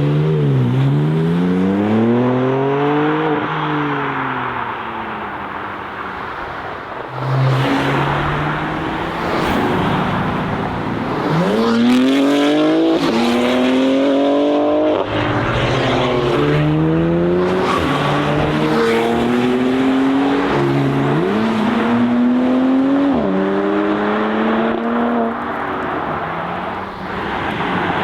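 BMW M3 G81 Touring's twin-turbo straight-six, loud and accelerating hard. After a short rev, the engine note climbs through several gears in a row, dropping back at each upshift, and eases off near the end.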